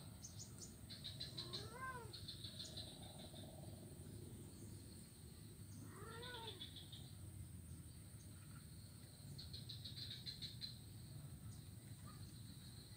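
A cat meows twice, each a short call that rises and falls in pitch, about four seconds apart. Faint high chirping carries on in the background.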